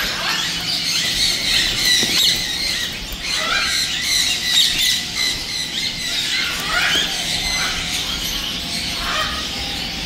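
Many caged parrots and songbirds calling at once: lots of short rising squeaky parrot calls over constant chirping.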